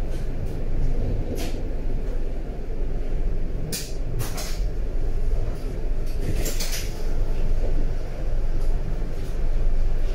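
A Berlin A3L71 U-Bahn train running between stations, heard from inside the car: a steady low rumble of wheels and running gear, broken by a few short sharp clacks, the strongest a little before and just after the middle.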